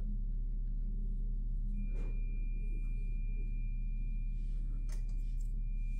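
Steady low hum, with a thin high steady tone that comes in about two seconds in and holds, and a couple of soft clicks.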